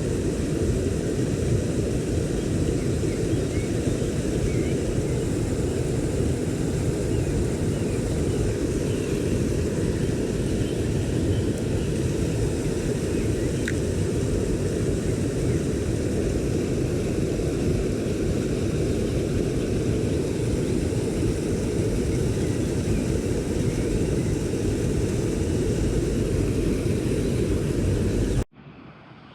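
Steady low rushing of flowing stream water close to the microphone. It stops abruptly near the end.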